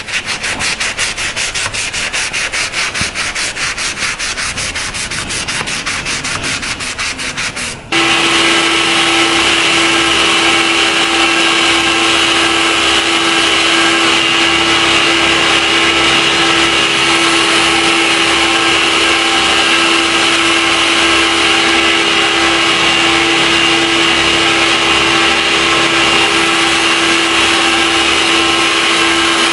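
Rapid back-and-forth sanding strokes on a steel knife blade, several a second. About eight seconds in they give way abruptly to a power sander or polisher running steadily with a constant hum, abrading the blade.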